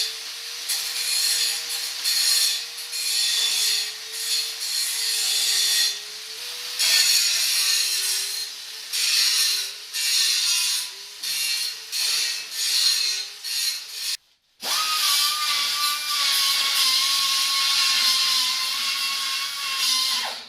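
Angle grinder grinding a steel vehicle frame, its motor tone dipping as the disc bites and recovering between repeated passes. About fourteen seconds in it breaks off briefly, then comes back as a steadier run at a higher pitch that cuts off suddenly at the end.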